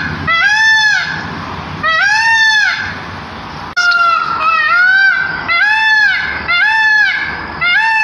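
Indian peafowl calling: a series of about seven loud calls, each under a second long and rising then falling in pitch, coming closer together in the second half.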